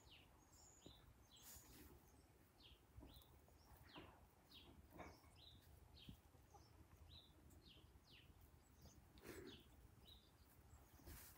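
Near silence with faint, scattered short high bird chirps, several every second or two.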